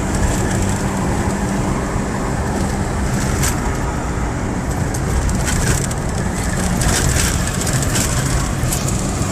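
A four-wheel drive's engine and tyre noise, heard from inside the cabin while it drives along a road, with a few light knocks and rattles.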